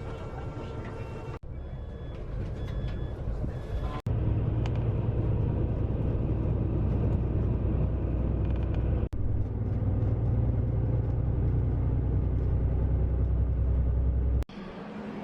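A vehicle running with a steady low rumble, heard in several short clips joined by abrupt cuts; the rumble is loudest in the middle and stops suddenly near the end.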